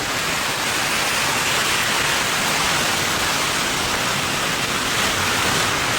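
Torrential rain and hail pouring down in a storm: a steady, dense hiss.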